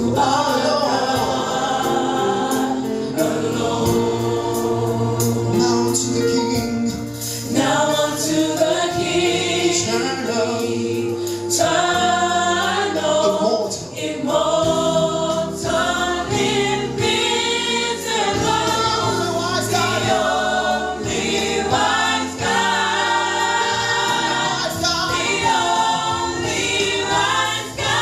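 Gospel worship music: a choir singing together over sustained low instrumental notes, going on without a break.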